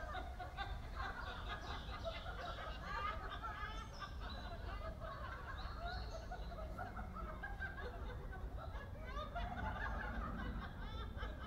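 Many overlapping voices chattering and chuckling at once, a dense babble of short laughs and murmurs with a low steady rumble underneath.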